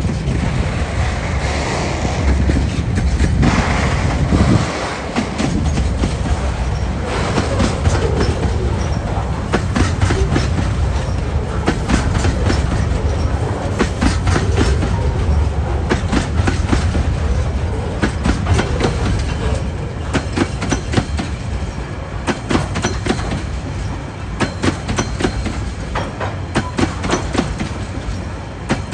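TasRail freight train's container and empty flat wagons rolling past: a steady rumble of steel wheels on rail with a constant run of sharp clicks as the wheels cross rail joints.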